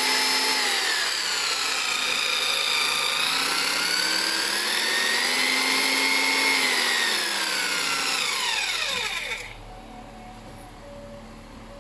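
Worcraft BS0876 electric belt sander running with a high motor whine. Its pitch sags twice and recovers in between. About nine seconds in it is switched off and winds down with a falling whine.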